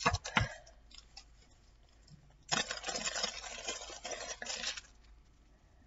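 A couple of sharp knocks right at the start, then about two seconds of crinkling, rustling packaging as the next small item is taken out and unwrapped from a cardboard box.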